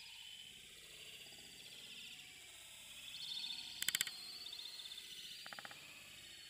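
Faint high-pitched squeaking and chatter from a colony of animals roosting in the trees, with a sharp rattling call about four seconds in and a shorter one about a second and a half later.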